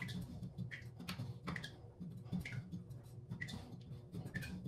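A stiff sink angle stop valve being worked back and forth by hand, its handle and stem giving irregular small clicks and creaks, about two a second, as the frozen valve is coaxed free with its packing nut loosened.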